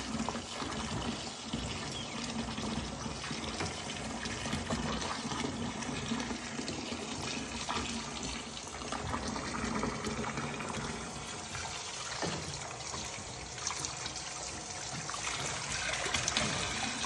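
Bathtub faucet running, pouring a steady stream of water into a foam-filled bath.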